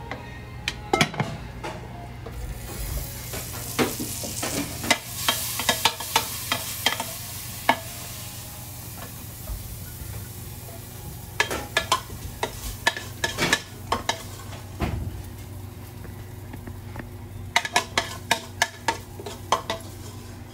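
Metal spoon or ladle clinking and scraping against stainless-steel pots in three bursts as sauce is ladled out. A steady hiss runs from about two seconds in to about ten seconds. Under it all is the low hum of a kitchen extraction hood.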